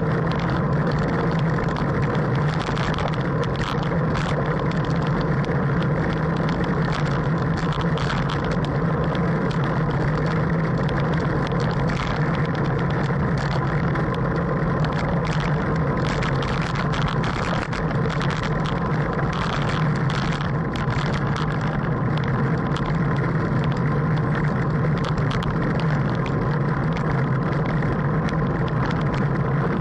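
Wind and road noise on a camera mounted on a racing bicycle at speed: a steady, muffled rush with scattered light clicks and knocks.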